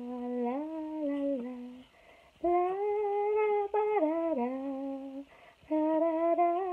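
A woman humming a simple tune in held notes that step up and down, in three phrases with short breaths between them.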